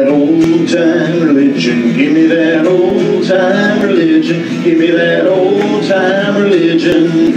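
Congregational worship singing with a man's voice prominent and instrumental backing: a slow, sustained melody.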